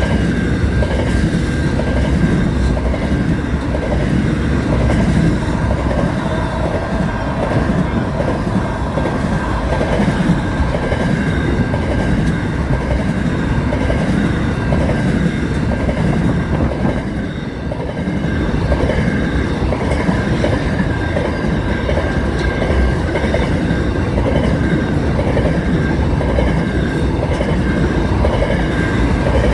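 Long freight train of container wagons rolling past close by: a steady heavy rumble with the clickety-clack of wheels over the rail joints, and a steady high-pitched tone running over it.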